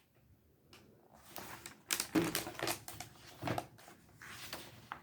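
Paper rustling and light clicks from handling and turning the pages of a picture book, in uneven bursts that are loudest about two seconds in.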